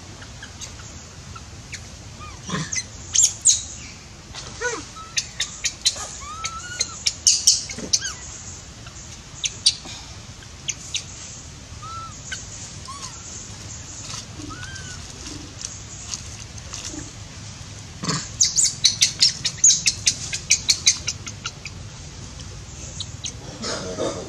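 High-pitched animal calls: scattered short chirps and squeaks with a few rising-and-falling whistled notes. About three quarters of the way through comes a quick run of a dozen or so chirps.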